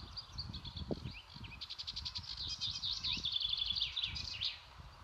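A songbird singing high, varied phrases, with a fast trill about a second and a half in, the song ending about four and a half seconds in. Irregular low rumbling runs underneath.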